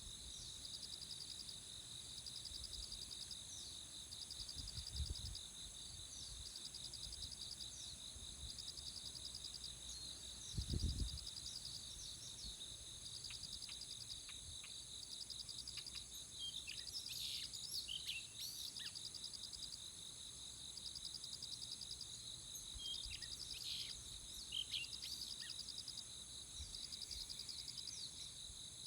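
Steady chorus of insects holding several high tones, with a pulsing trill that starts and stops every second or two, and short chirps of small birds coming in from about halfway through. Two brief low thumps, near 5 s and 11 s.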